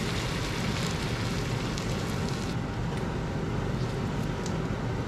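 Chicken thighs frying in a COSORI electric pressure cooker pot, sizzling steadily as cream is poured in and stirred with a silicone spatula, with a few light scrapes. Under it runs the steady whirr of a kitchen extractor fan.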